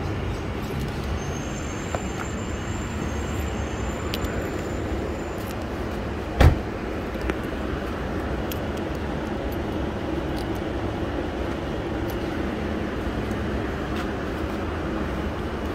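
Steady outdoor background noise with a few faint clicks, and one sharp knock about six and a half seconds in that is the loudest sound.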